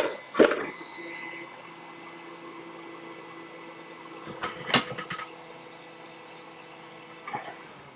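Hot air gun's fan blowing with a steady hum, with sharp handling knocks and clicks about half a second in, around the middle, and near the end.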